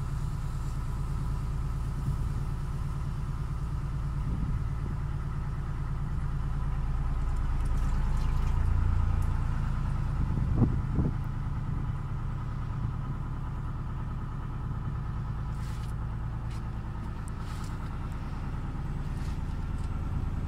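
Narrowboat's diesel engine running steadily at low revs with an even low chug, swelling briefly about halfway through, with a couple of light knocks.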